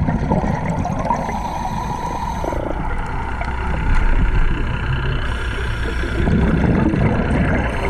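Underwater recording of a scuba diver's regulator breathing: short hissing draws of breath and bubbles gurgling on the exhale, over a steady low rumble.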